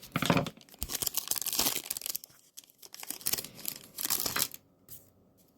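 A trading card pack's wrapper being torn open and crinkled by hand, in two spells of crackling; the second stops about four and a half seconds in.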